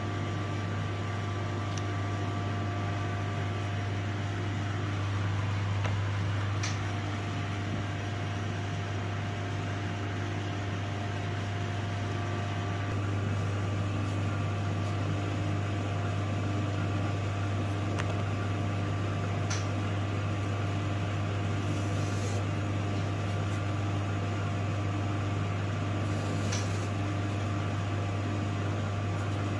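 Steady machine hum, like a running fan or ventilation unit, with a strong low hum and a few fainter steady tones above it. A handful of faint short clicks come through it.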